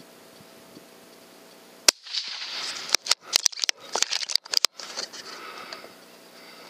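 A single .243 rifle shot, a sharp crack just under two seconds in, recorded very close by the rifle-mounted scope camera. About three seconds of crackling, rustling noise and clicks follow as the rifle recoils and is handled.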